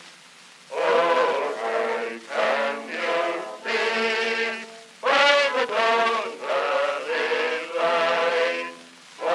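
Old recording of a military brass band playing a slow melody in held notes, phrase by phrase, with short breaks between phrases. The sound is thin, with no bass.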